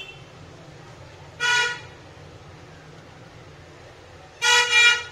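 A vehicle horn honking: one short honk about a second and a half in, then two quick honks near the end.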